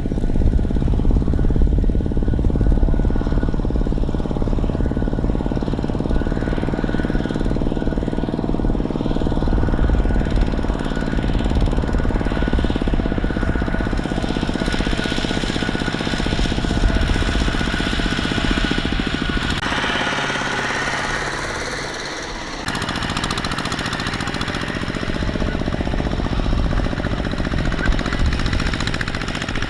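Single-cylinder Kubota diesel engine of a small farm tractor running with a fast, steady knocking beat. The sound sags a little about twenty seconds in, then jumps back up abruptly.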